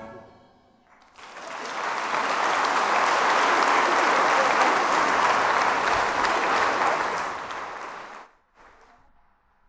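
Audience applauding, swelling in about a second in, holding steady, then cut off abruptly near the end.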